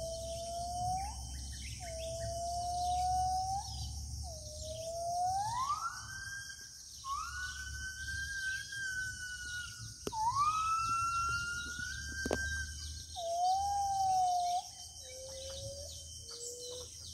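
Gibbons singing: a series of clear whistled hoots that climb into long rising, held notes in the middle, then drop back to short, lower notes near the end. A steady high insect drone runs underneath.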